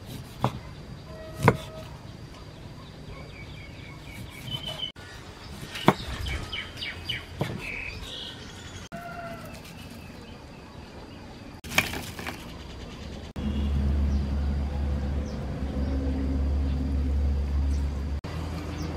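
A knife cutting limes on a wooden chopping board, a few sharp knocks, with birds chirping in the background. Later comes a steady low rumble for about five seconds, the loudest part.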